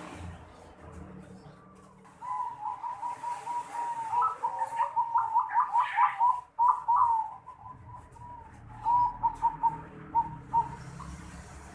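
Zebra dove (perkutut) cooing: a long run of quick rolling coo notes starts about two seconds in, then a shorter phrase follows near the end. This is the unusual song that fanciers call 'noklak'.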